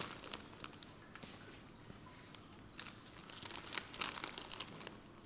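Faint rustling with scattered small clicks in a quiet room, busiest about three to four seconds in.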